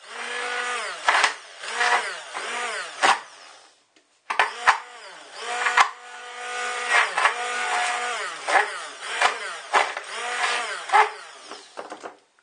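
Hand-held stick blender crushing ice in a tall plastic beaker: its motor whine repeatedly dips and recovers in pitch as the blade bogs on the ice, with sharp cracks of ice chunks hitting the blade and beaker. It cuts out for about half a second around four seconds in, then runs on until just before the end, the ice being ground to snow.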